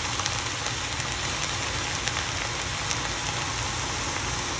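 Pork belly and onions sizzling in a hot stainless steel pot, a steady hiss with scattered small pops, over a low steady hum.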